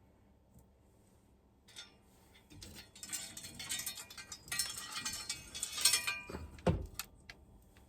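Metal wrenches clinking and rattling against each other as they are rummaged through, with a dull thump near the end.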